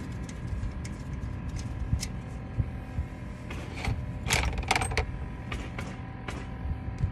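Scattered sharp metallic clicks, with a quick run of brighter clinks about four to five seconds in, over a steady low background rumble.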